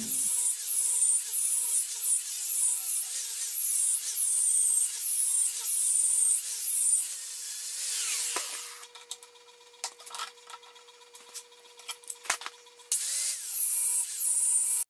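Angle grinder with an abrasive disc cutting into a steel bar clamped in a bench vise: a loud hissing cut that swells and eases in a repeating rhythm. About eight seconds in it winds down, leaving a few clicks and knocks, and near the end it cuts in again.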